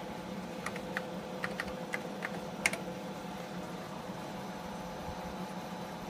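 Keys struck on the Texas Instruments Portable Professional Computer's keyboard: about eight clicks in the first three seconds, the last one the loudest, over a steady background hum.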